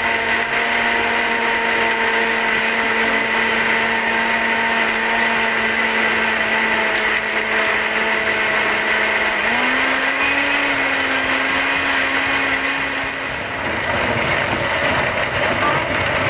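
Electric kitchen blender running, crushing ice with mint leaves, lemon, sugar and water: a steady motor whine over grinding noise. The whine steps up in pitch about halfway through and fades into a rougher churning near the end.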